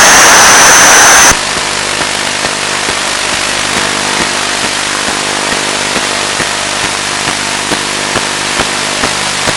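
Audio from a model plane's analog FPV video downlink: loud hiss of radio static that cuts off about a second in. It gives way to a steady hum of many level tones, with scattered crackling clicks of interference.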